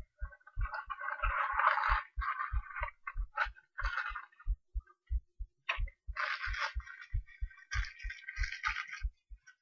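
Human heartbeat heard through an acoustic stethoscope: an even run of paired lub-dub thumps, a little over one beat a second. Stretches of scratchy rustling noise lie over the beats for several seconds at a time.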